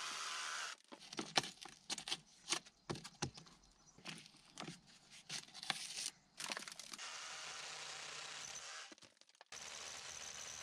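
A cordless drill boring into a granite stone wall stops. Then a steel bar scrapes and knocks against the stone in a run of irregular sharp cracks as loose rock is pried out of the hole. From about seven seconds in, the drill runs steadily again.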